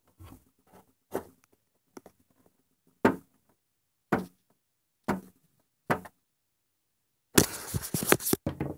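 A toy rabbit figure knocked against the floor of a dollhouse, seven short sharp knocks about a second apart. Near the end comes a denser burst of rattling and clattering handling noise.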